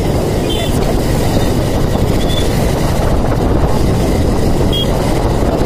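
Steady low wind rumble on the microphone of a phone carried on a moving motorbike, with the bike running and road noise underneath.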